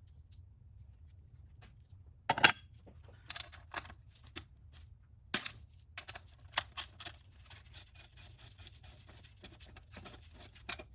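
Hand work in an engine bay: scattered clicks and knocks of tools and parts being handled, the loudest about two and a half seconds in, with a stretch of light scraping and rattling in the second half.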